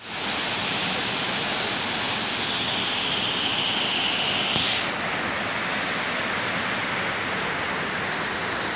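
Waterfall pouring in several streams down a stepped rock face: a steady rush of falling water. A brighter, higher hiss lies over it for about two seconds in the middle.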